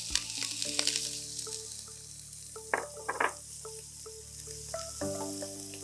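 Chopped onion sizzling as it fries in hot oil in a pan, a fine steady hiss, with two short knocks about halfway through. Soft background music plays alongside.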